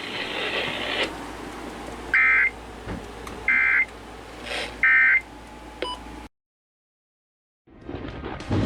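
Emergency Alert System end-of-message (EOM) code on a weather-radio broadcast: three short, identical two-tone data bursts, about a second and a half apart, that mark the close of the warning. Radio hiss runs before them.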